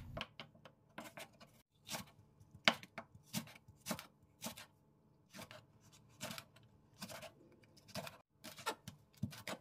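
Chef's knife cutting vegetables on a cutting board: first Korean radish, then green onion and chili peppers. Short separate knocks of the blade on the board come at an uneven pace, about two or three a second.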